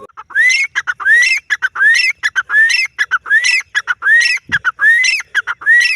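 Grey francolin (teetar) calling loudly and repeatedly: a quick series of rising whistled notes, about two a second, each wrapped in rapid clicky notes.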